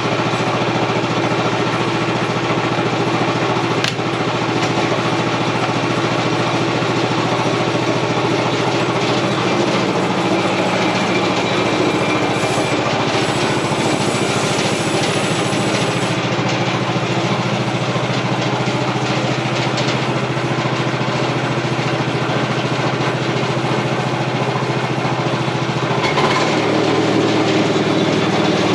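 Engine of an OS31 portable bandsaw mill running steadily under load while the blade saws a wide American elm log. The engine note shifts slightly near the end.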